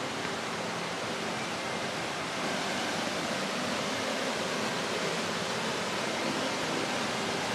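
A mountain stream and a small waterfall rush steadily over rocks into a pool. The rushing grows a little louder about two and a half seconds in.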